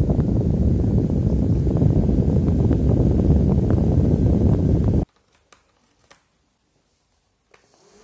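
Twin-head USB desk fan running, its air blowing onto the microphone as a steady low rushing noise. The noise cuts off suddenly about five seconds in, leaving near silence with a few faint clicks.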